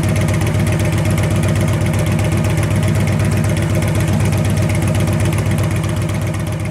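2014 Victory Cross Country's V-twin idling steadily through its de-baffled exhaust pipes, a loud, even low-pitched pulse. The sound fades out near the end.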